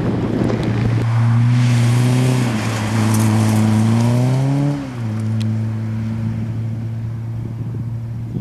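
Peugeot 106 rally car's four-cylinder engine pulling under load, its pitch rising. About five seconds in it drops sharply at a gear change, then runs on steadily in the next gear, slowly fading as the car moves off. In the first second a rushing pass-by noise comes from another rally car.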